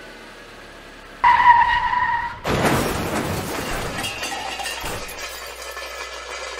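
Car crash sound effect: a tyre screech lasting about a second, then a sudden loud crash with breaking glass that rattles and dies away over the next few seconds.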